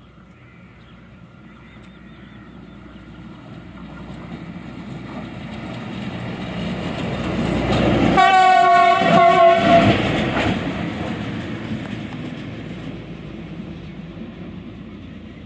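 Rail-borne track maintenance machine, a small crane vehicle, approaching along the line and growing steadily louder. It sounds its horn for about two seconds as it passes close by, about eight seconds in. Then its running noise fades as it moves away.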